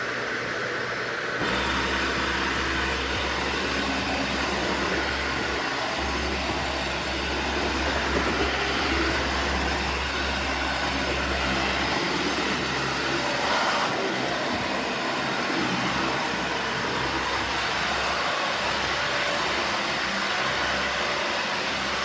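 Dyson Ball Animal 2 upright vacuum cleaner running steadily. About a second and a half in, its sound grows fuller with an added low hum as the motorised brush bar is switched on and starts spinning.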